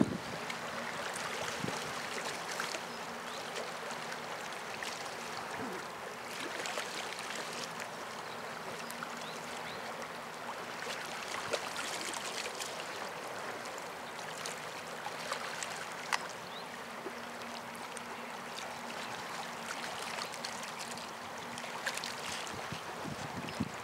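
Choppy river water washing and lapping, with a faint steady low engine drone from boats on the river.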